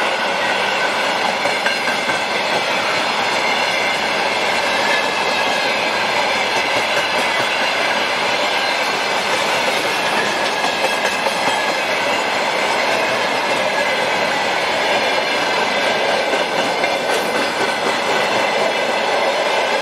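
Freight train of open gondola wagons rolling past close by: a steady, loud noise of steel wheels running on the rails, with occasional brief clatters and several steady high ringing tones over it.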